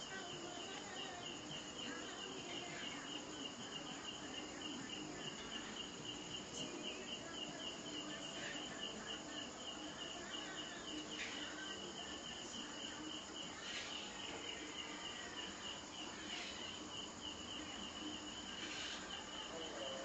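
Cricket chirping in a steady, fast, evenly pulsed high trill over a faint constant hiss.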